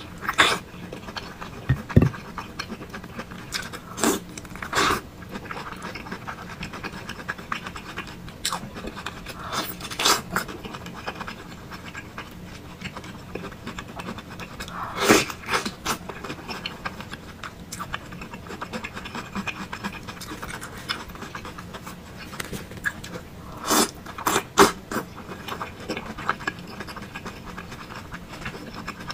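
Close-miked mukbang eating sounds: a person slurping and chewing thick noodles and meatballs. Short, sharp mouth noises come at irregular intervals over a low background.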